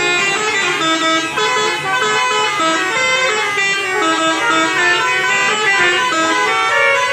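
Several tour buses' telolet basuri multi-tone horns playing melodies at once, their tunes overlapping in short stepped notes.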